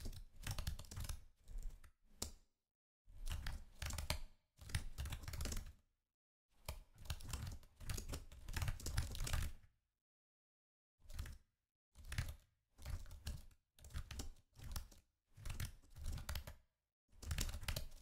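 Typing on a computer keyboard: runs of rapid key clicks lasting a second or two each, broken by short pauses, with a longer pause about ten seconds in.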